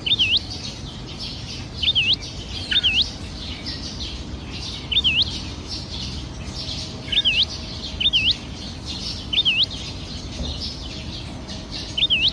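Flock of house sparrows chirping steadily. Over the chirping, a loud whistled call that dips and then sweeps sharply up repeats about every one to two seconds.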